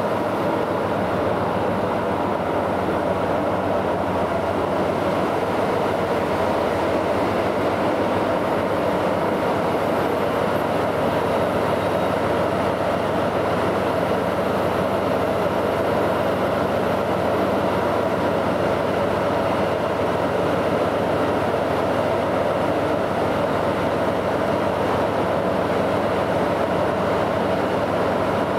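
DF200 diesel-electric locomotive's engines running as it hauls a freight train slowly into the station to stop, a steady, even drone with no horn.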